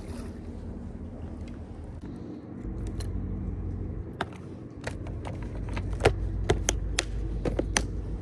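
A series of sharp, irregular clicks and ticks, about a dozen, starting about four seconds in, over a steady low rumble.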